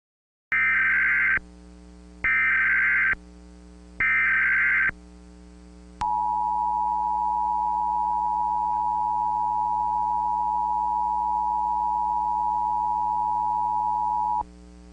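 Emergency Alert System tones: three short bursts of SAME header data, each a buzzy digital warble about a second long. These are followed by the EAS two-tone attention signal, held steady for about eight seconds.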